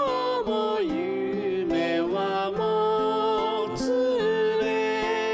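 Slow ballad-style music: a held melody line sliding smoothly between notes over steady backing notes.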